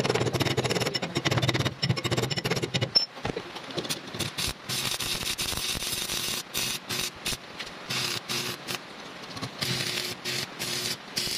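Stick (shielded metal arc) welding rod burning on steel: the arc crackles and sizzles, broken by many brief gaps.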